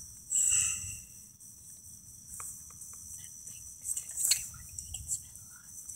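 Crickets chirping steadily in a night-time chorus, with scattered faint clicks and a brief soft noise about half a second in.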